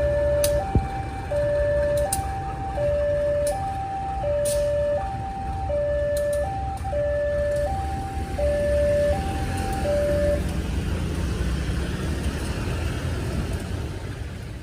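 Two-tone electronic warning alarm, high and low notes alternating about every 0.7 s, over a steady low rumble; it stops about ten seconds in. This fits a railway level-crossing alarm sounding for a train.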